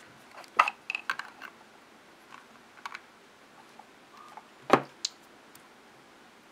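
A few scattered light clicks and taps of hard plastic parts being handled: a 3D-printed plastic handle being tried against an action camera, with the sharpest knock about three quarters of the way through.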